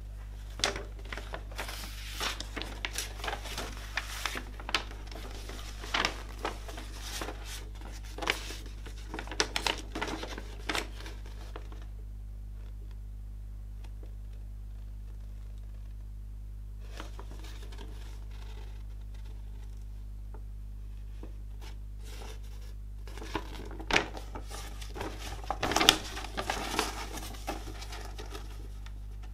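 A folded paper poster insert from a CD being handled and unfolded: bursts of paper rustling and crinkling for the first ten seconds or so, a lull, then more rustling near the end, over a steady low hum.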